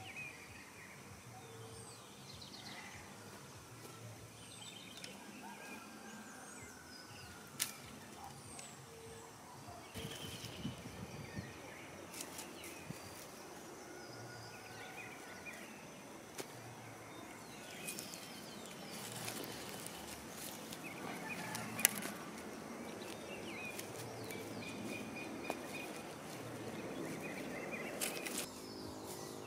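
Birds chirping and calling in short bursts over an outdoor background, with two sharp clicks and some rustling in the grass, louder in the last third.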